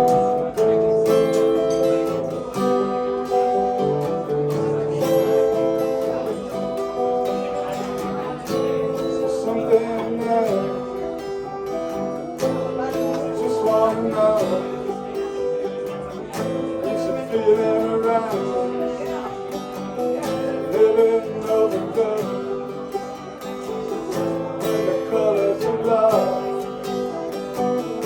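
Acoustic guitar strumming and picking a song's instrumental opening.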